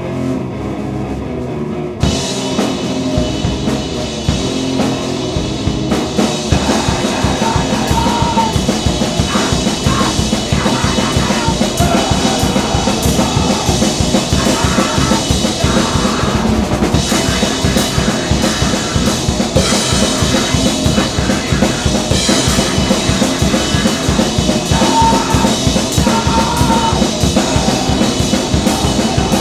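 Grindcore noise band playing: distorted guitar noise alone at first, then about two seconds in the drums crash in with fast, relentless drumming under the guitar.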